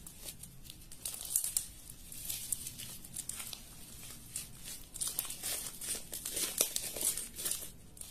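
Irregular crinkling and crackling of something being handled close to the microphone, coming in quick clusters that are busiest about a second in and again over the last three seconds.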